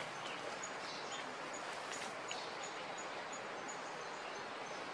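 Steady outdoor forest ambience, an even hiss of background noise. Over it a small creature gives a high, thin note repeated about three times a second, starting about half a second in and stopping near the end.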